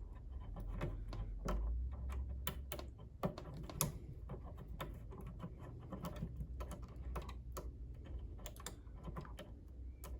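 Irregular light clicks and taps of a small tool or part being worked into an old Kenmore sewing machine.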